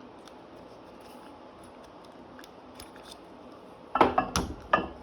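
Nylon lockjaw-style quick-release barbell collar being unlatched and worked off a bar. There are light plastic clicks, then a cluster of loud clacks about four seconds in as the lever pops open.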